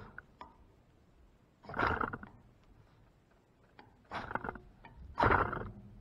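Ferro rod scraped hard with a striker to throw sparks: a series of rasping scrapes, each about half a second long, one to two seconds apart.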